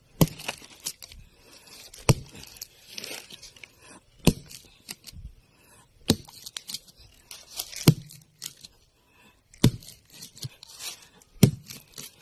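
Heavy chopping blows of a hand tool, seven strikes at a steady pace of about one every two seconds, each followed by crackling and tearing as material breaks loose.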